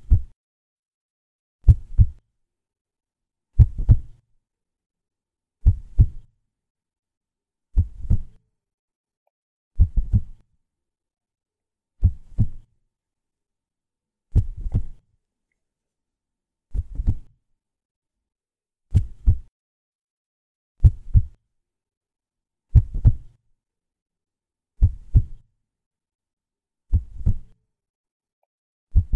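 Heartbeat sound effect: slow, evenly spaced double thumps, about one beat every two seconds, with silence between.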